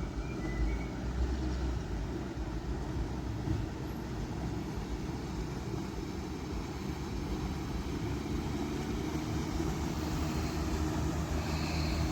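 Low, steady motor hum of a river tour boat passing, growing slightly louder in the second half.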